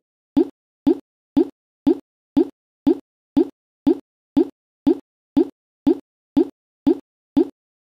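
A short pop repeating at an even pace of about two a second, with silence between each one.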